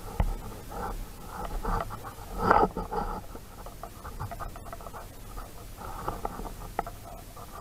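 A dog panting close by while it is being petted, with irregular short sounds and a louder one about two and a half seconds in.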